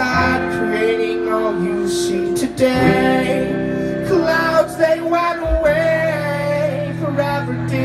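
Live rock band playing: a male singer holds long sung notes over electric guitar and sustained bass notes.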